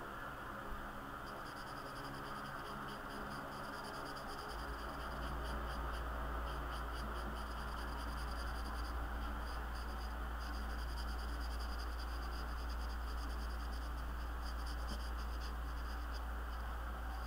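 Felt-tip marker scribbling on sketchbook paper in quick, short scratchy strokes as it fills in a solid black area, with a brief pause midway. A steady low hum and hiss sit underneath, the hum coming in about four seconds in.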